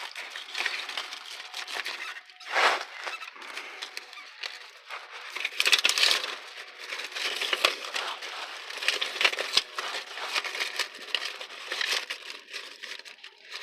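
Plastic film and backing of an exhaust repair sealing tape crinkling and rustling as it is handled and peeled, in irregular flurries, louder about 3 and 6 seconds in.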